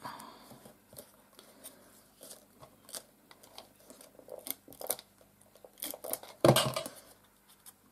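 Stampin' Up! Fast Fuse adhesive applicator pressed and run over small punched paper flowers, laying down sticky adhesive: scattered light clicks and crackles of tape and paper, with one louder knock of handling about six and a half seconds in.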